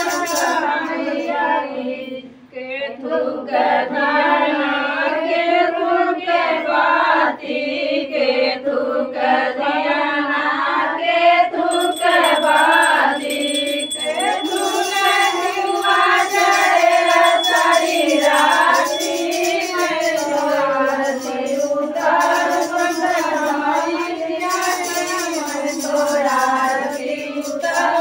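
Women's voices singing a devotional song with a continuous, wavering melody, briefly dipping about two seconds in.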